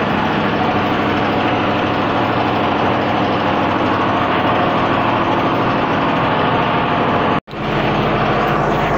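Ship's generator engine running steadily, a dense even drone that fills the engine room; the sound cuts out for an instant about seven and a half seconds in.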